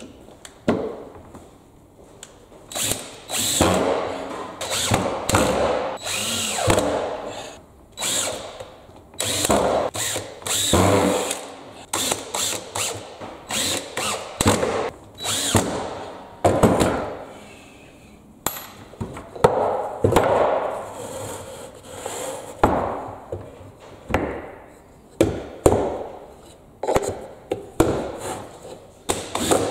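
Power drill running in many short bursts of about a second each, stopping and starting again throughout.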